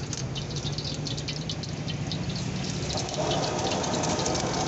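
Gas wok burner running steadily under a carbon-steel wok, with hot oil crackling in the pan. About three seconds in, a stream of oil is poured into the hot wok and adds a louder pouring, sizzling noise.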